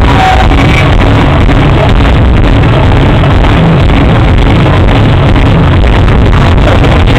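Fireworks barrage going off without pause: a dense mass of rapid bangs and crackling over a deep rumble, loud enough to overload and distort the microphone.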